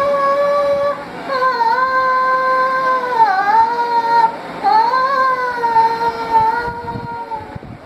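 A single high voice sings a Tamil song, drawing out long held notes with slow bends in pitch and pausing briefly for breath about a second in and again about four seconds in.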